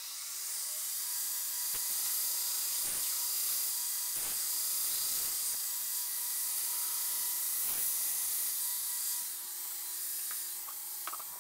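2x72 belt grinder with a 2 hp motor on a variable-frequency drive, running on a 3D-printed drive wheel while steel is ground against the abrasive belt: a steady high hiss over the motor's whine. About nine seconds in the hiss eases a little while the motor keeps running.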